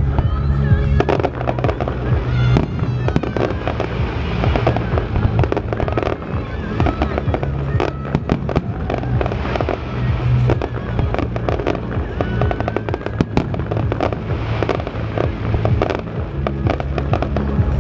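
Aerial fireworks display: many sharp bangs and dense crackling of shells bursting, over music with deep steady notes.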